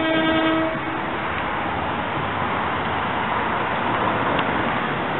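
Electric commuter train's horn, one tone that cuts off within the first second, followed by a steady noise.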